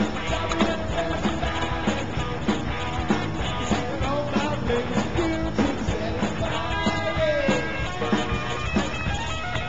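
Background music: a rock song with singing, guitar and a steady beat.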